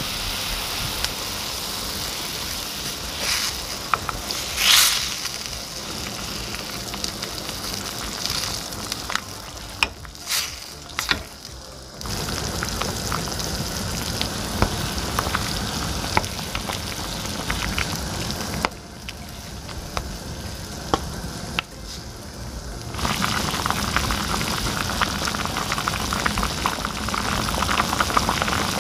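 Spicy soft-tofu stew boiling hard in a pan on the stove, a steady sizzling bubble, with a few knocks and scrapes of a wooden spatula in the pot. The bubbling grows louder and busier about three-quarters of the way through.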